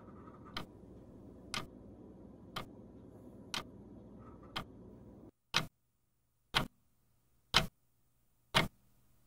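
Steady ticking, one sharp tick each second, over faint room noise. A little over halfway through, the room noise cuts out and the ticks carry on louder against silence.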